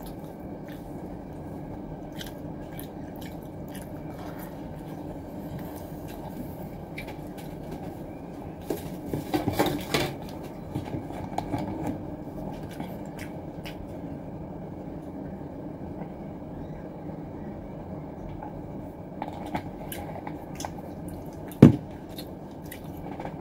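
Small eating and handling noises: light clicks of wooden chopsticks and a plastic takeaway food tray, with chewing, over a steady background hum. A cluster of clicks comes about ten seconds in, and a single sharp knock near the end is the loudest sound.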